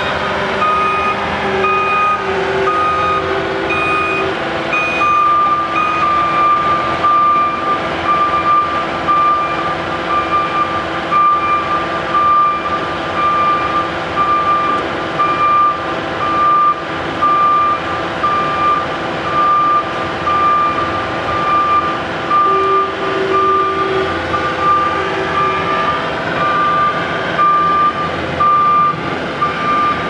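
Backup alarm of a reversing bottom-unloading (flow boy) asphalt truck, beeping at an even rate over diesel engines running. The beeps get louder about five seconds in.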